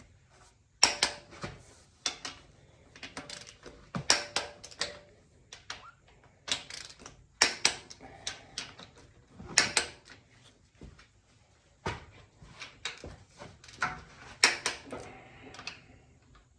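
Metal tools and parts clanking and clicking irregularly, some knocks with a short metallic ring, as work goes on at a tractor's cylinder head.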